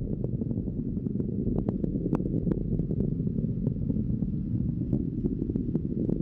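SpaceX Falcon 9 rocket's first-stage engines during ascent: a steady low rumble with frequent sharp crackles through it.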